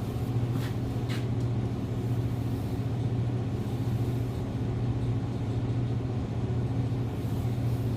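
Electric knife-sharpening machine's motor running with a steady hum, with a couple of faint clicks in the first second or so.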